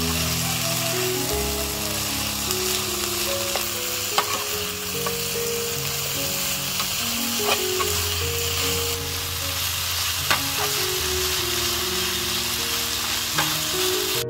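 Chicken and water spinach sizzling steadily in a wok as they are stir-fried, with a metal spatula clicking and scraping against the pan every few seconds. Soft background music of held notes underneath.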